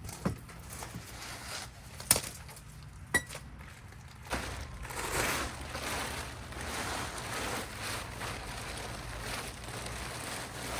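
Three sharp metallic clinks in the first three seconds, then steady rustling from about four seconds in as a trailer of donated blankets is unloaded.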